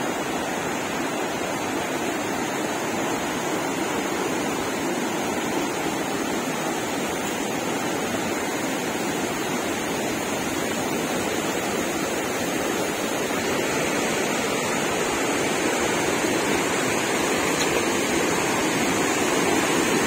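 Waterfall and the rocky river below it: a steady rush of falling and tumbling water, growing slightly louder in the second half.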